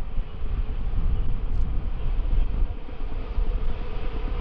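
Wind buffeting the microphone in a steady, gusting rumble, with the faint drone of two T-class diesel locomotives growing slightly as they approach hauling a train.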